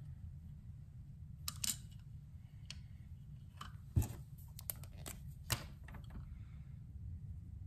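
Scattered sharp clicks and taps of metal parts handled as a folding knife is set into a KME sharpener's clamp, the loudest tap about four seconds in and a quick run of clicks just after. A steady low hum runs underneath.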